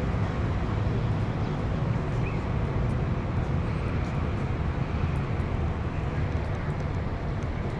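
Steady low rumble of city street ambience, distant traffic noise with no distinct events.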